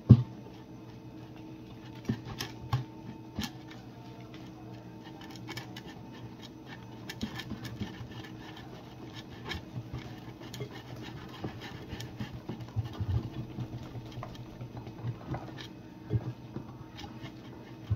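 Wire whisk stirring thick chickpea-flour batter in a glass bowl: irregular clicks and scrapes of the whisk against the glass, with a few sharper knocks.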